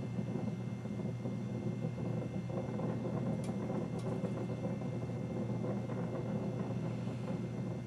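Steady drone and rumble of a car driving, heard from inside the vehicle, with a constant low hum underneath.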